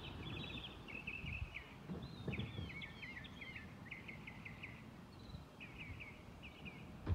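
A songbird singing a run of quick chirps, sweeping notes and short trills, over a low, steady outdoor rumble.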